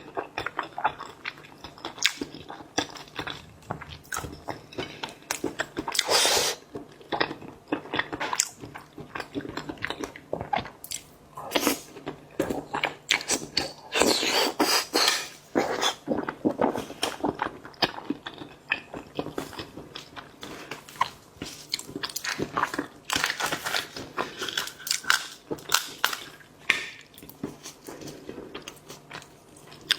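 Close-miked eating of seafood: biting and chewing, with many short, irregular crunching clicks.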